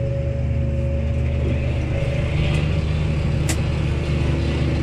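Case Maxxum 140 tractor's diesel engine running steadily under working load, with one sharp click about three and a half seconds in.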